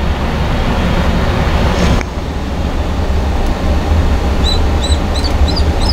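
Brass cleaning rod with patches being pushed through the barrel of a Beeman R9 air rifle, with a short scrape about two seconds in, over a steady low rumble. Near the end, short high chirps repeat two or three times a second.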